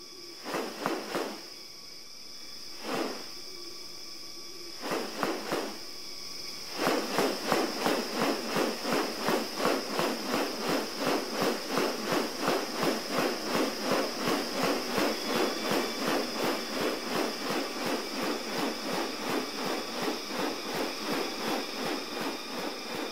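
Rainforest ambience with a steady high-pitched insect drone. A few short rustling swishes come early, then from about seven seconds in a fast, even run of rasping pulses sets in, about two or three a second.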